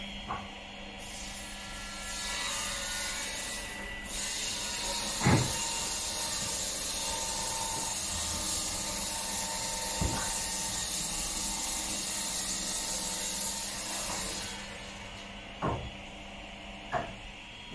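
Construction-site machine noise: a steady hiss over a low hum, broken by four sharp knocks, the loudest about five seconds in. The hiss fades out near the end.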